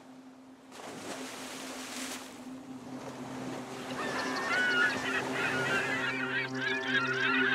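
Sea surf washing, joined about halfway through by a crowd of gulls calling, over a steady low droning tone; the sound grows louder throughout.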